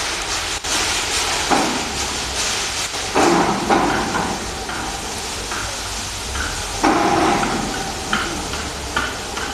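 Gantry-type precast concrete finishing machine running over fresh concrete, a steady noisy hiss and scrape over a low mechanical hum, with a few louder rough surges about 1.5, 3 and 7 seconds in.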